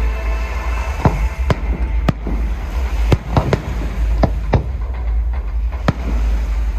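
Aerial fireworks shells bursting: about a dozen sharp bangs at uneven intervals over a steady low rumble.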